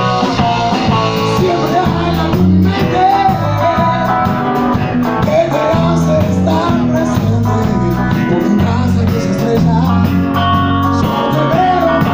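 Live rock band playing loudly: electric guitar, electric bass and drum kit, with a wavering, bending melody line over a steady bass-and-drum groove.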